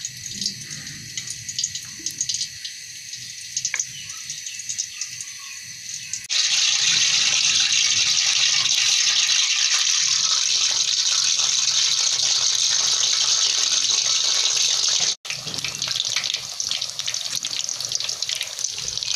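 Cooking oil poured in a thin stream into a steel karahi. About six seconds in, a loud, steady sizzle begins as a spice-coated fish piece fries in the hot oil.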